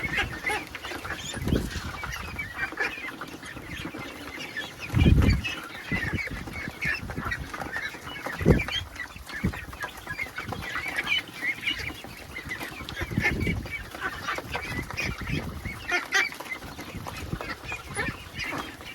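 A group of ducks feeding, with a constant stream of short, high calls, broken by a few low thumps, the loudest about five seconds in.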